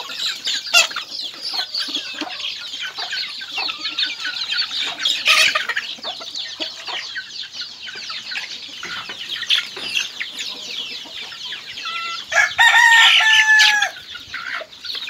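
Flock of native chickens feeding: constant high peeping from the young birds mixed with clucking, and a rooster crowing once near the end, the loudest sound.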